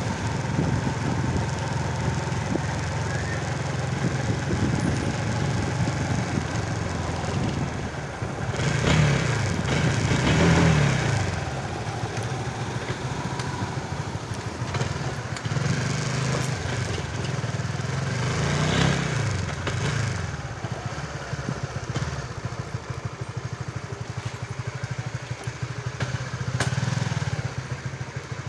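Small motorcycle engine running while riding, revving up and easing off twice, about a third of the way in and again about two-thirds in, then running more evenly and a little quieter near the end.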